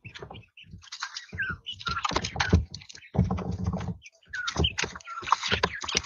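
Three-week-old quail chirping amid rapid clicking and tapping from their beaks and feet on the feeder and floor.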